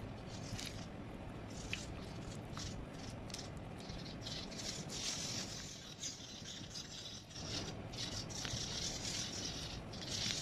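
Tie-dyed cloth being squeezed and pressed by a gloved hand in a metal bowl of sodium silicate solution: irregular wet squelching and crinkling, with a short lull about six seconds in.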